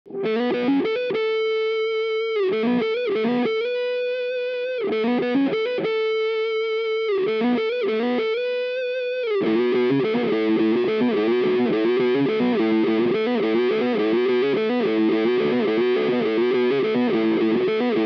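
Distorted electric guitar playing a riff through the Jam Pedals Seagull cocked-wah filter. For about the first nine seconds it plays sustained notes broken by short gaps, then switches to a quicker, denser riff.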